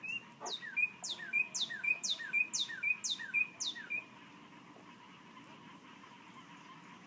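A songbird singing a rapid run of about eight repeated phrases, each a steep downward whistle followed by a short note and a lower slur, which stops after about three and a half seconds.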